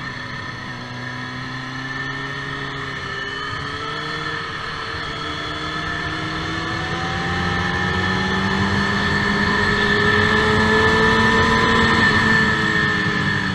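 Sport motorcycle engine heard from on board, accelerating hard out of a corner and down a straight in one long pull. Its pitch climbs slowly and it gets louder, with wind rushing past, then the throttle closes near the end and the pitch drops.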